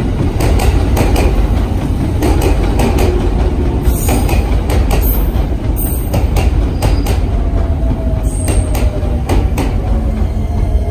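Electric train running along the track, loud and steady, its wheels clacking over the rail joints, with a faint falling whine in the last few seconds.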